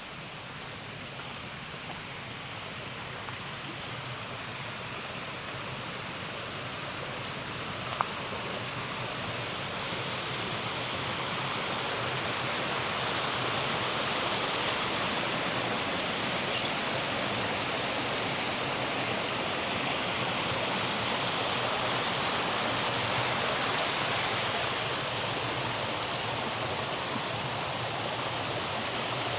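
Steady rush of flowing water, growing gradually louder, as when walking toward a stream or waterfall. A short sharp sound about a quarter of the way in and a brief high-pitched one about two-thirds through.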